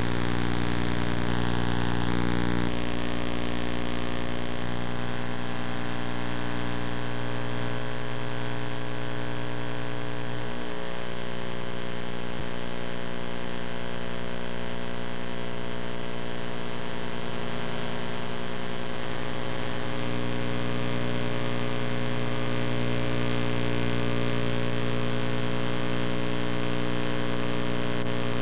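Steady, fairly loud electrical mains hum with a dense stack of even overtones, unchanging.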